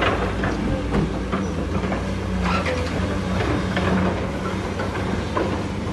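Heavy construction machine running steadily with a low engine hum, over which come many short metallic clanks, knocks and squeals.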